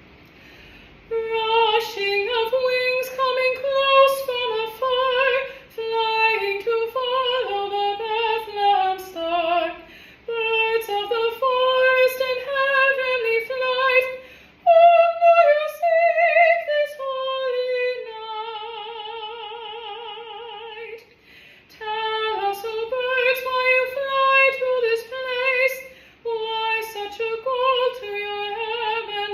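A solo female voice singing a carol unaccompanied, in short phrases with breaths between them, holding one long note with vibrato about eighteen seconds in.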